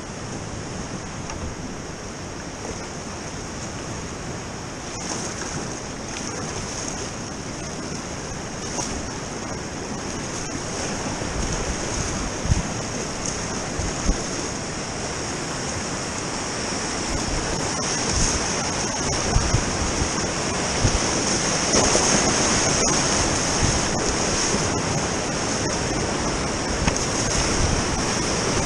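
Whitewater rapids rushing around a kayak, growing steadily louder as the boat runs into the rapid. Occasional sharper splashes and low buffeting thuds on the microphone stand out above the rush.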